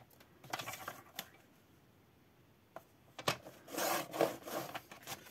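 Cardstock being slid and positioned on a plastic sliding paper trimmer: paper rubbing and rustling against the trimmer, with a few light clicks and taps. There is a short quiet pause in the middle, then a louder spell of scraping and rustling near the end.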